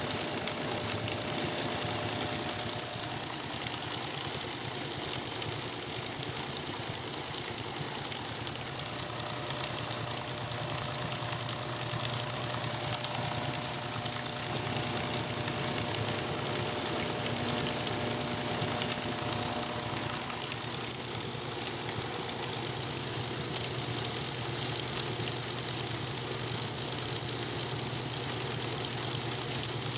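Electrolux Top 8 top-loading washing machine running in its rinse cycle: a steady mechanical hum and hiss with a faint rattle.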